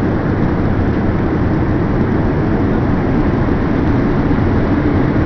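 Steady cabin noise of an Airbus airliner in flight, heard inside the cabin: an even rush of jet engines and airflow that holds level throughout.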